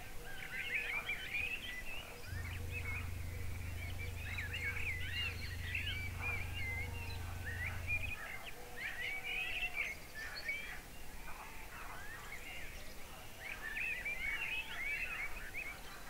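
Many birds chirping and trilling at once in a countryside dawn chorus. A low steady hum lies under them and stops about eight seconds in.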